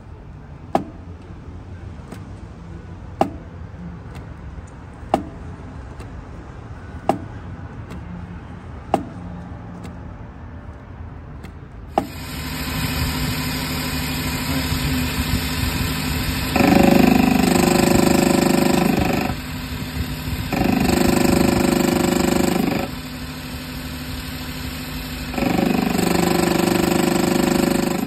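Suzuki Every's flywheel knocking with single sharp clunks about every two seconds as it is worked by hand: axial play caused by a worn crankshaft thrust bearing. Then the engine runs, and three times, for two to three seconds each, a loud harsh grinding noise comes from the clutch area, which the owner puts down to the crankshaft thrust bearing having dropped out, letting the crankshaft move when the clutch pedal is pressed.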